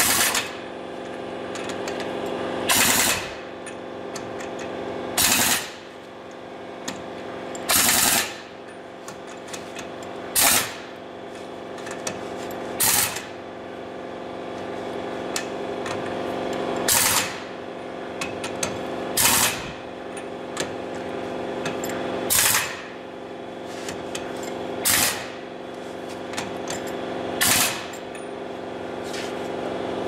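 Heavy 1-inch-drive pneumatic impact wrench hammering on a truck wheel's lug nuts in about ten short bursts, one every two to three seconds, one burst per nut. A steady hum runs underneath between the bursts.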